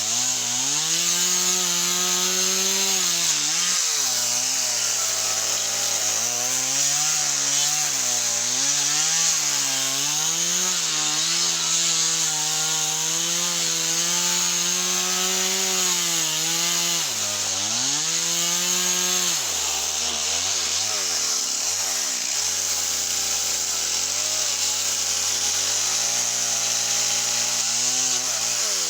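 Small chainsaw cutting softwood, its engine note wavering and sagging as the chain loads up in the cut. About twenty seconds in it drops back to a low idle, then revs up again near the end.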